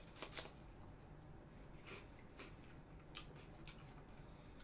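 Biting into a Mentai Umaibo puffed corn stick: two sharp crunches just after the start, then a few faint crunches of chewing.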